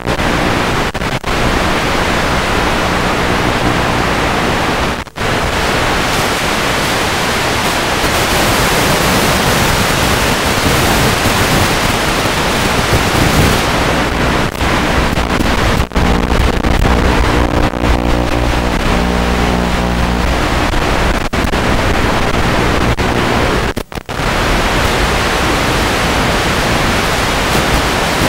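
Loud steady hiss of static on an analog FPV drone's video-link recording, cut by a few short dropouts. A low hum of several tones comes in past the middle for several seconds.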